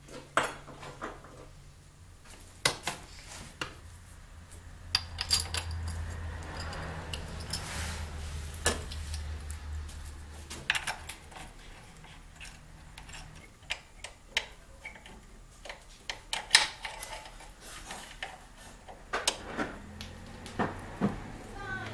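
Irregular metallic clinks and clicks as steel engine mount bolts with lock washers are handled and started by hand into a snowmobile engine mount, with hand tools knocking against metal. A faint low hum sits under the clinks for several seconds in the middle.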